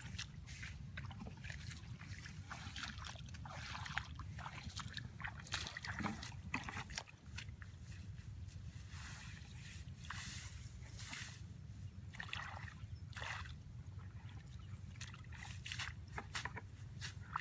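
Water splashing and sloshing in irregular bursts, with a steady low rumble underneath.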